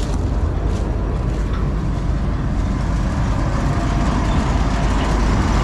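John Deere 4400 combine running with a loud, steady rumble.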